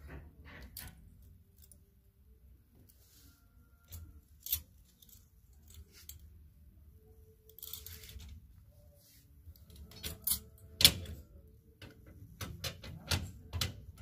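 Clothes hangers clicking and clacking against metal display bars as garments are taken down and rehung, with a brief rustle of fabric. The clicks are scattered and separate, and the loudest comes about eleven seconds in.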